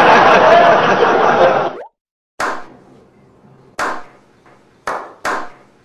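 Loud laughter from a group of men, which stops abruptly about two seconds in. Then four slow, single hand claps, the gaps between them shortening.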